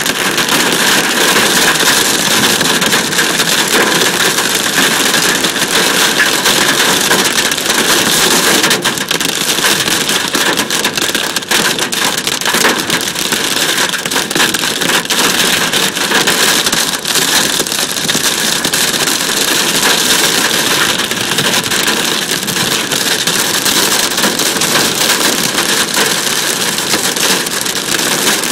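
Dime-size hail and rain pelting a Nissan pickup truck, heard from inside the cab: a loud, continuous clatter of sharp snaps on the hood, roof and windshield.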